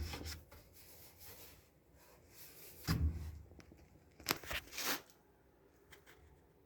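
Handling noises from taking a dryer apart: a knock about three seconds in, then two sharp scraping rustles, with faint rattling between.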